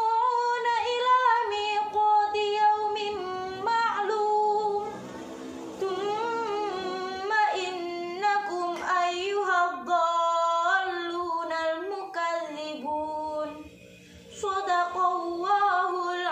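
A young woman reciting the Qur'an in tartil style, her unaccompanied voice carrying long, held melodic notes that glide between pitches, with a short pause for breath near the end.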